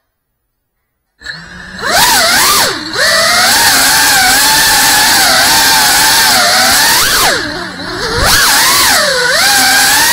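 Silent for about the first second, then an FPV quadcopter's motors whine loudly at high throttle. The pitch swoops down and back up about three times as the throttle is cut and punched again.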